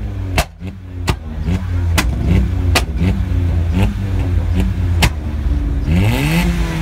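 A remapped Vauxhall Corsa's engine is blipped again and again, and its exhaust cracks with sharp pops and bangs between the revs. Near the end comes one longer rev that rises in pitch.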